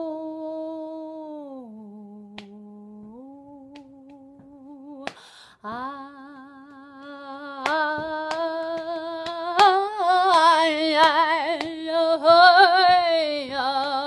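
A woman singing unaccompanied, holding long notes: a soft stretch that falls to a low note and rises again, then the word 'home' sung louder and held with a wide vibrato. Scattered sharp clicks sound along with the singing in the second half.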